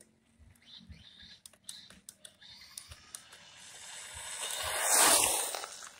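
Small electric RC truck running across asphalt and passing close by: motor and tyre noise swells to a loud peak about five seconds in, then drops away quickly.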